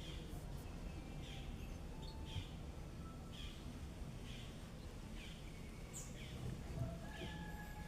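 Faint background with a bird repeating a short call about once a second, a few thin whistled notes in between, over a low rumble.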